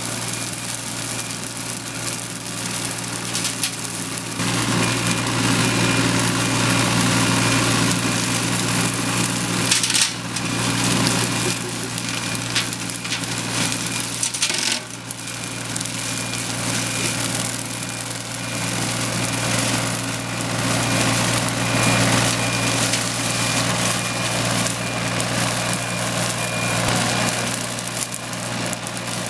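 Mini excavator engine running steadily while its hydraulic Raptor EX-30 flail mower head spins, cutting and mulching roadside grass and weeds. The sound swells about four seconds in, with a couple of sharp cracks around ten and fifteen seconds in.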